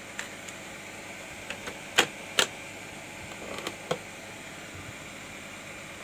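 Cassette being loaded into a homemade cassette tape deck: a series of sharp plastic clicks, the two loudest about two seconds in as the tape is seated and the cassette door snapped shut, then lighter clicks of fingers on the deck's controls about a second and a half later. A steady faint hiss runs underneath.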